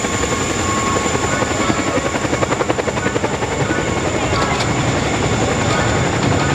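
Boeing CH-47 Chinook tandem-rotor helicopter flying low, its rotor blades chopping rapidly under a steady high whine.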